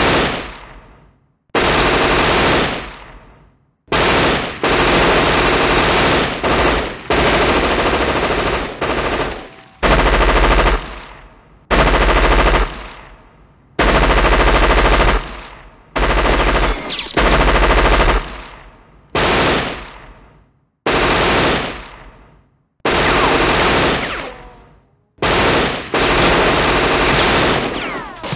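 Automatic machine-gun fire from action-film soundtracks: a string of separate bursts of rapid shots, each about one to two seconds long and fading away in an echoing tail before the next burst starts.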